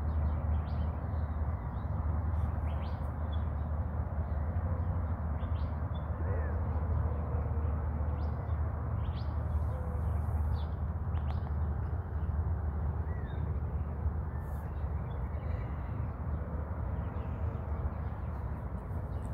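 Outdoor ambience with a steady low rumble and a few short bird chirps now and then.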